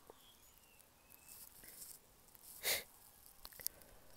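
A quiet pause with a short breathy sniff a little past halfway and a few faint clicks near the end.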